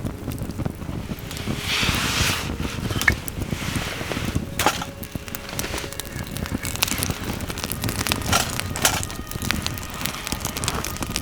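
Firewood burning in a campfire, crackling with scattered sharp pops, over a low wind rumble on the microphone.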